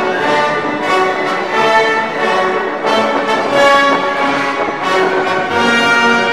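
Orchestral classical music playing over the footage, with strings and brass.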